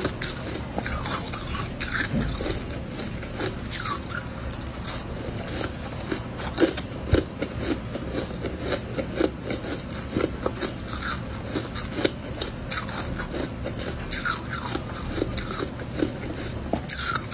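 Close-miked mouth eating freezer frost: soft, powdery snow-like ice being bitten and chewed, repeated crunches in a steady chewing rhythm.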